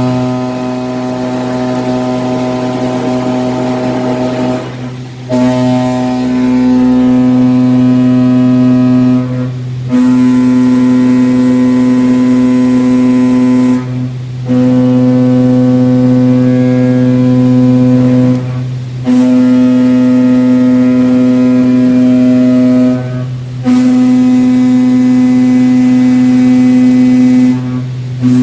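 Machining chatter from a cutting tool in 6061 aluminum: a loud, steady buzzing tone with many overtones, broken by short pauses about every four to five seconds. A lower hum carries on through the pauses.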